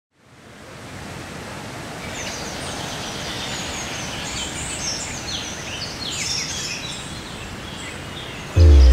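Outdoor ambience fading in: many birds chirping and whistling in short calls over a steady background hiss. Just before the end, music with a heavy bass comes in suddenly and much louder.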